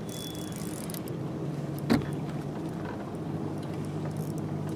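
Spinning reel being cranked as a hooked largemouth bass is fought on a drop-shot rig, a soft mechanical whirring over a steady low hum. A single sharp knock about two seconds in.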